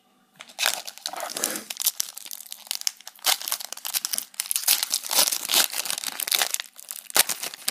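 A foil Pokémon trading-card booster pack wrapper crinkling loudly in the hands as it is worked and torn open, starting about half a second in.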